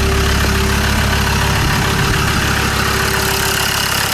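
Land Rover Discovery 2's Td5 five-cylinder diesel idling steadily and evenly, with no misfire to be heard after its injector loom was replaced; it sounds quite healthy.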